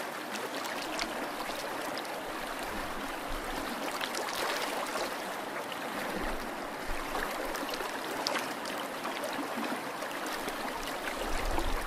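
Water trickling and fizzing around a cardboard model ship as it floods and sinks, a steady hiss with scattered faint pops.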